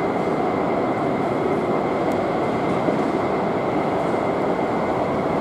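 Jet airliner engines running at taxi idle on an airport apron: a steady rumble with a thin high whine held on one pitch.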